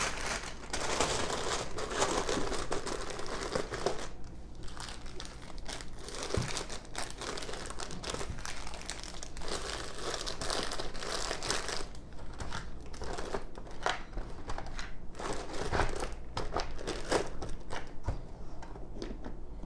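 Plastic zip-lock bags of LEGO track parts crinkling as they are handled and pushed into a plastic tackle box, with scattered clicks and knocks as the box's plastic trays are folded shut.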